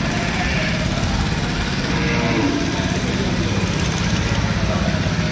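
An engine running steadily at idle, a low even drone throughout.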